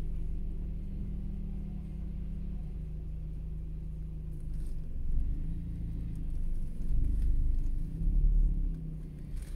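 Rear-loading garbage truck's diesel engine running as the truck pulls away, a steady low rumble heard from inside a car, with a few louder low surges in the second half.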